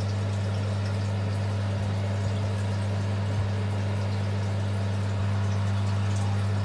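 Newly fitted Vent-Axia bathroom extractor fan running with its grille cover on: a steady low motor hum over a soft rush of air, the sign that the installation works.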